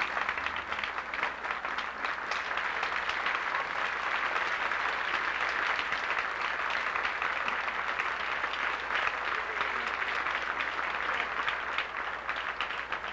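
Audience applauding steadily, thinning out a little near the end.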